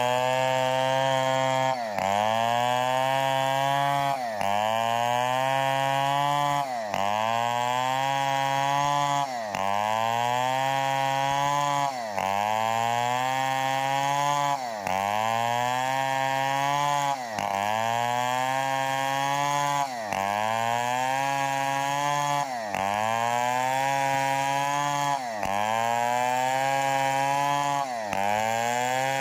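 Stihl 070 two-stroke chainsaw running hard while cutting timber into beams, its engine pitch dipping sharply and recovering about every two and a half seconds.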